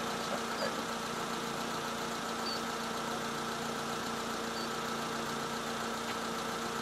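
Vehicle engine idling with a steady, even hum, with a few faint high chirps over it.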